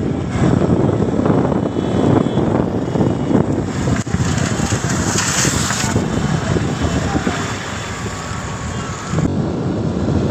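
Wind buffeting the microphone of a rider on a moving motorbike, over the running noise of the ride; it eases a little near the end.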